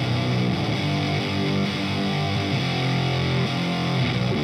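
Electric guitar played through a Meat Grinder Fuzz pedal, a silicon-transistor octave fuzz based on the Univox Super Fuzz: a low, distorted riff of held notes changing about once a second, with a short run of quickly picked notes in the middle.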